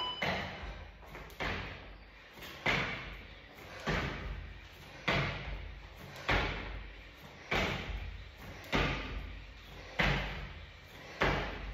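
A steady series of about ten thuds, one every second and a quarter or so, the repeated impacts of a workout exercise being done in a set rhythm.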